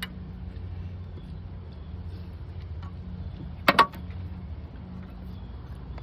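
Two sharp metallic clinks close together, about three and a half seconds in, from a tool knocking against metal during engine-bay work, over a steady low hum.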